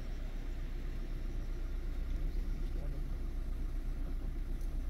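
A steady low rumble, such as an idling vehicle engine makes, with a few faint ticks.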